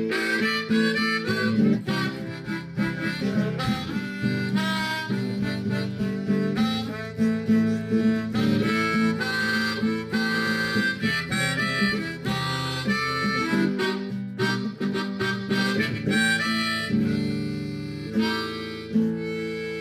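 Harmonica playing a melody over a strummed acoustic guitar: an instrumental break in a worship song.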